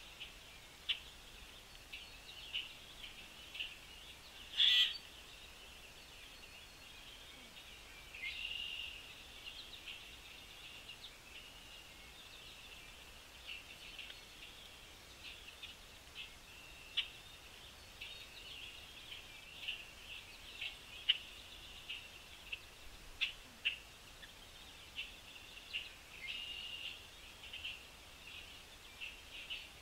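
Small birds chirping with short, scattered chirps all through, with a brief louder burst about five seconds in.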